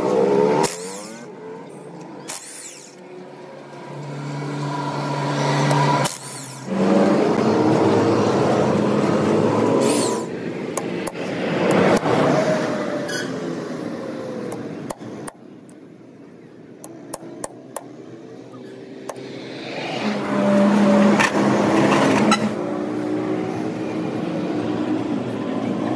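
Impact wrench running in several long bursts on the pinion flange nut of a truck differential, with sharp metal clicks and clinks in the quieter gaps between.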